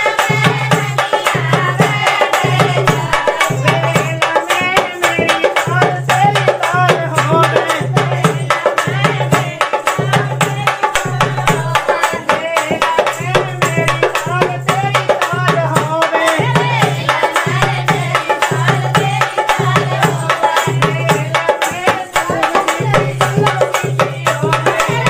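North Indian folk dance music playing loudly, with hand-drum percussion over a steady pulsing bass beat and a wavering melody.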